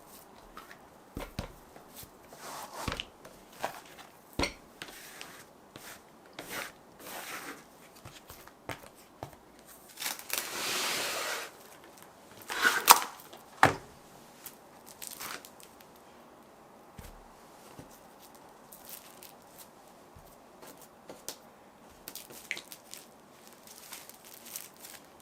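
Kitchen handling sounds from cooking preparation: scattered light taps and knocks, a rustling tear lasting about a second and a half near the middle, then two sharper knocks.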